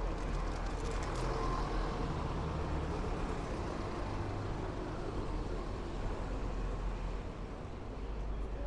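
City street traffic: a motor vehicle's engine running with a steady low rumble over general road noise.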